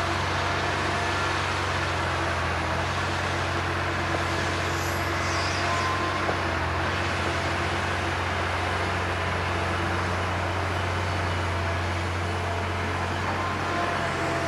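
Heavy diesel engine of a Liebherr 956 crawler excavator running steadily under load as it digs clay and swings a full bucket, with the engine of the Volvo FMX dump truck waiting beside it also running. A steady low drone with no sharp impacts.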